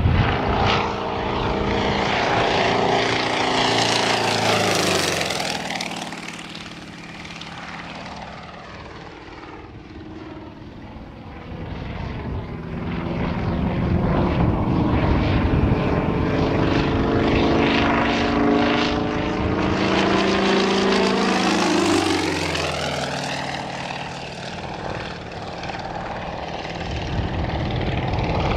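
Yak-55M's nine-cylinder M-14P radial engine and propeller in aerobatic flight, passing twice. The engine note drops in pitch as the plane goes by, about five seconds in and again about twenty-two seconds in, and fades between the passes.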